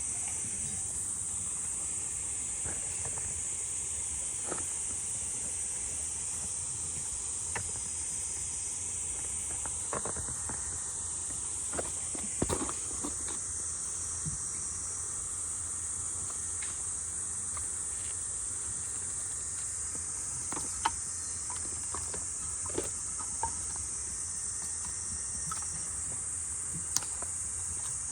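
Steady high-pitched chorus of insects, with scattered light clicks and knocks now and then.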